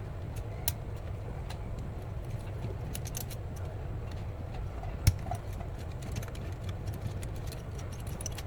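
Low, steady rumble of wind on the microphone, with scattered light clicks and one sharper click about five seconds in.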